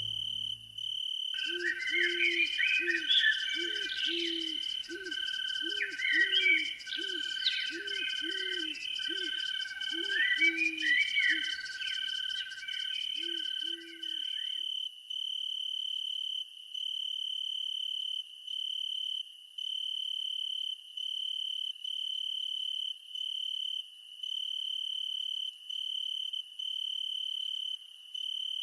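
Night chorus of insects and frogs. A steady, pulsing high insect trill runs throughout. Over the first half, a low call repeated about one and a half times a second and scattered higher chirps join it, then stop about halfway through.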